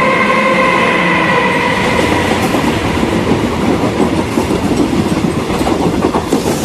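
Moving train sound effect: a passenger carriage rattling and its wheels clattering over the rail joints. A lingering ringing tone fades away over the first two or three seconds.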